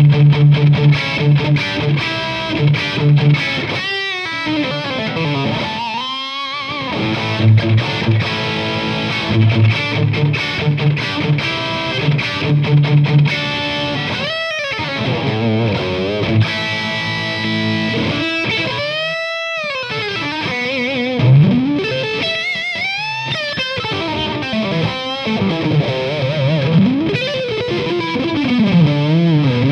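Distorted electric guitar with GRS Custom humbucking pickups, played through a valve amp. Short, heavy low riffs come first, then lead lines with wide pitch bends that rise and fall, and sweeping glides near the end.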